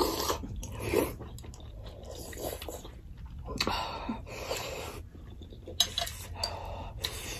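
Two people eating momo and thukpa noodle soup: chewing, with light clinks of metal spoons against china bowls and plates, in a string of short bursts.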